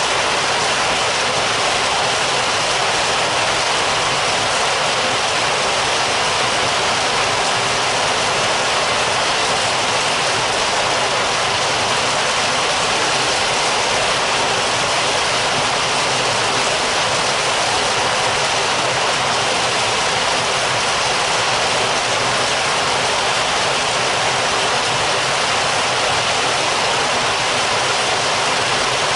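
Heavy rain heard from indoors: a steady, dense hiss of falling rain that does not change.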